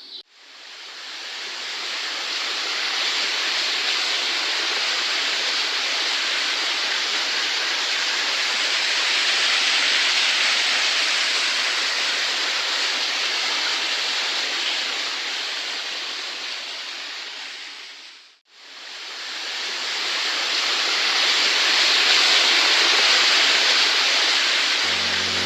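Waterfall rushing, a steady sound of falling water that fades out briefly about eighteen seconds in and then fades back up.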